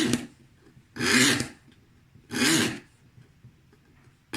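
Rasping strokes of a hand tool cutting glass-fibre resin board, about four strokes, each half a second long, with short pauses between.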